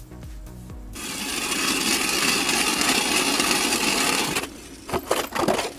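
Hand ice auger drilling through about 10 cm of lake ice, a steady grinding scrape of the blades cutting ice that starts about a second in and stops after about three and a half seconds, followed by a few short knocks near the end.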